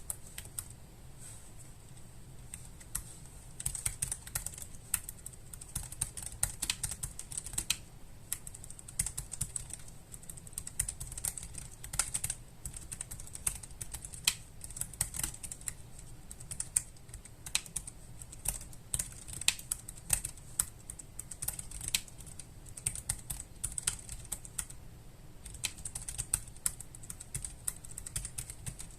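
Typing on a Keychron K3 low-profile mechanical keyboard with optical brown switches, a fast irregular run of key clicks. A few scattered keystrokes give way to continuous typing a few seconds in, with brief pauses.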